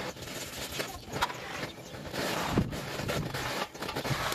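Stick-welding arc crackling as the electrode is run along a steel square tube, louder and steadier from about halfway through.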